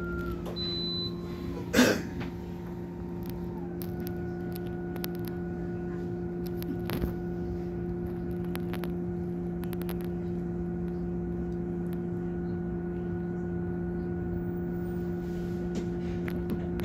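MAN city bus running with a steady low hum that holds its pitch, overlaid by a few thin higher whining tones that step down in pitch early on and then hold. A single sharp knock sounds about two seconds in.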